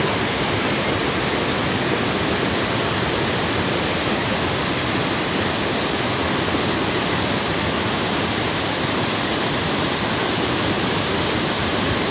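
Cold lahar flood from Mount Semeru: a torrent of muddy volcanic floodwater rushing past in a steady, unbroken rush of noise with no separate knocks or impacts.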